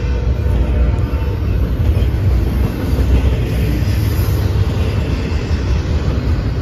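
Container freight train cars rolling past close by: a steady, loud low rumble.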